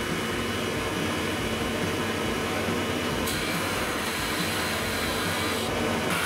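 Drill press running steadily with a bit trimming wood along an MDF template, over a continuous vacuum-like rush from the dust-extraction hose at the bit. The cutting noise brightens about halfway through.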